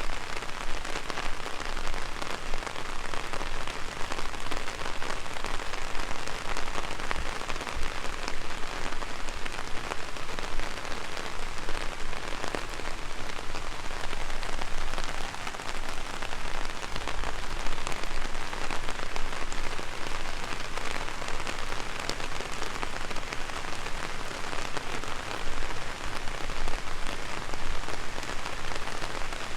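Rain falling steadily on an umbrella overhead: a dense, unbroken patter of drops.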